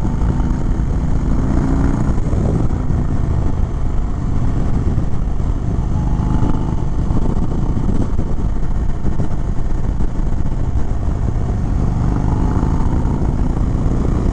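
Indian Chief Springfield Dark Horse's V-twin engine running steadily under way at road speed, heard from the saddle mixed with wind rush. The engine note rises gently a few times as the throttle is rolled on.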